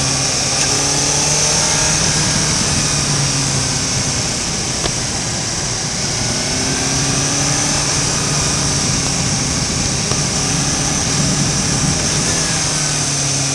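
Suzuki GSR750 motorcycle's inline-four engine pulling under way, rising in pitch twice as the bike accelerates, over a steady rush of wind and road noise.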